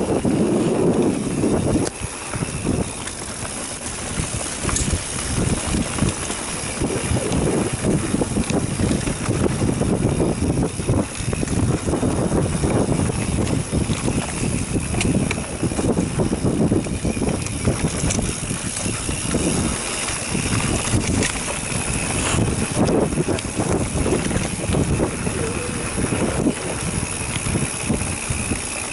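A mountain bike rolling fast down a dirt singletrack: a continuous rumble and rattle from the tyres and bike, with wind buffeting the action camera's microphone.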